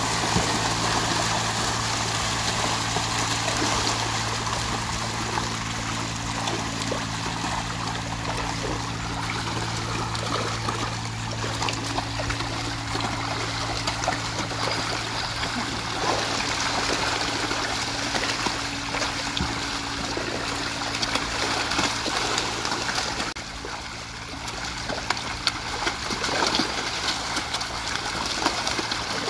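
Water trickling and running steadily, with a low steady motor hum underneath that fades out about three quarters of the way through.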